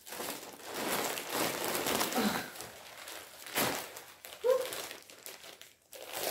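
Plastic packaging bag crinkling and rustling as hands open it and pull out clothing, in uneven bursts with a louder rustle about three and a half seconds in.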